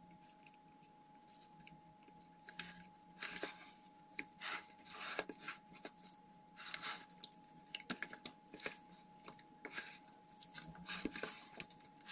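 Spoon and hands turning marinated pieces in a plastic bowl: scattered soft wet squelches, scrapes and clicks, over a faint steady tone.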